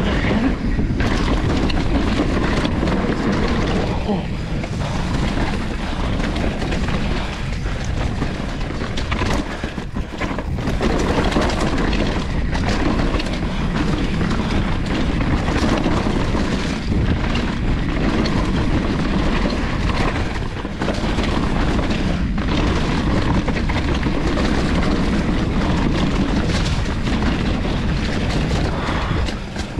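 Mountain bike descending a rocky dirt trail at speed: tyres rumbling over rock and dirt with frequent short knocks and rattles from the bike, under heavy wind buffeting on the helmet- or chest-mounted camera microphone.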